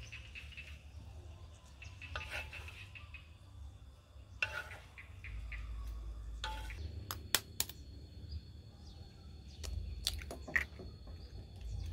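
Wooden spatula scraping and knocking against an unglazed clay wok as stir-fried vegetables are stirred and scooped out, in irregular scrapes and clacks. Near the end come a few sharp taps of a knife cracking an egg.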